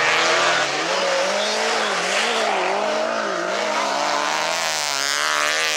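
Stock car engines revving hard on a dirt track, their pitch rising and falling over and over as the drivers accelerate and lift through the bend, over a steady rushing noise.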